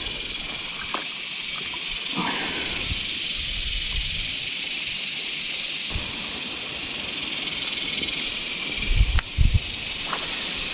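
A steady, dense high buzzing of an insect chorus in the creekside trees, with a few dull low thumps about nine seconds in.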